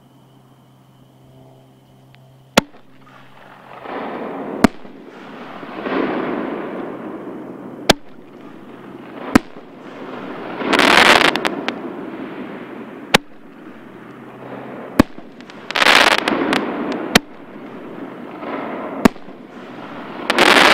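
Six-inch consumer artillery shells firing one after another, giving sharp bangs every second or two. Three longer, loud bursts of hissing noise come about ten seconds in, about sixteen seconds in and at the end.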